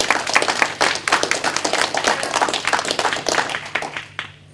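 A small audience applauding: many hands clapping densely, dying away about four seconds in.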